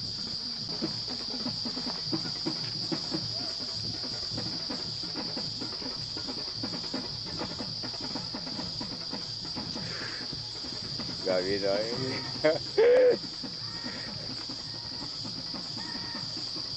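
Steady high-pitched insect chorus, continuous throughout, with irregular low crackling in the first half. A few short voice-like sounds come about eleven seconds in, ending in a brief loud call about thirteen seconds in.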